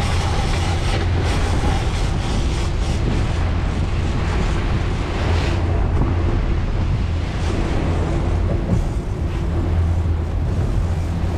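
Wind buffeting the microphone and water rushing and splashing around the stern of a World Cat 325CC catamaran, over the steady low hum of its outboard motors.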